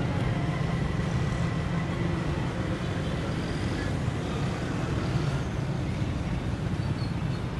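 Steady road traffic at a signal: cars, motorcycles and auto-rickshaws idling and moving, a constant low engine hum.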